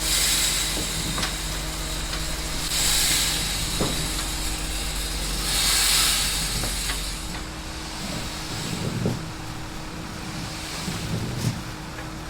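A machine runs with a steady hum. Three long bursts of hissing noise come over it, at the start, about three seconds in and about six seconds in.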